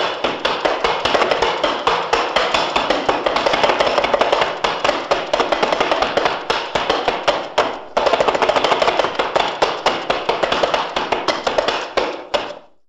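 A rapid, dense clatter of many sharp knocks, with a short break about eight seconds in before it starts again and fades out near the end.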